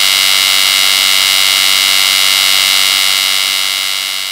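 A loud, steady, high-pitched buzzing drone that fades out near the end.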